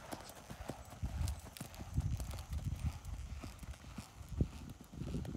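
Hoofbeats of a horse loping on arena sand: dull, low thuds repeating in an uneven rolling rhythm.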